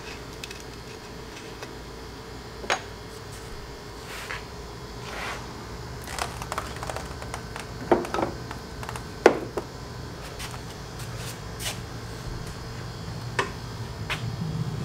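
Scattered light clicks and knocks from hands handling small metal parts and tools, about ten in all, the sharpest about nine seconds in, over a steady low hum.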